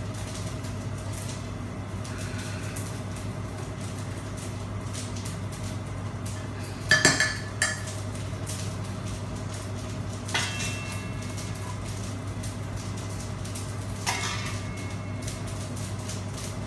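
Metal slotted spoon scooping cooked rice out of a non-stick pot and onto a plate, clinking against the pot rim and the plate in short clatters about seven, ten and fourteen seconds in, the first the loudest. A steady low hum runs underneath.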